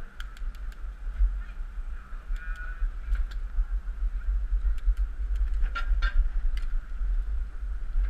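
Wind rumbling on the microphone of a camera riding on a bicycle, with scattered light clicks and a short honk-like tone about two and a half seconds in.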